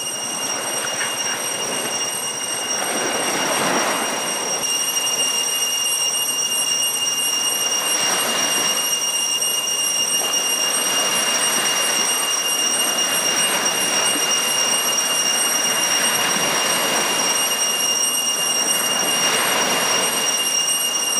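Small waves breaking and washing up a sand beach, the noise swelling and easing every few seconds. A steady high-pitched whine runs underneath throughout.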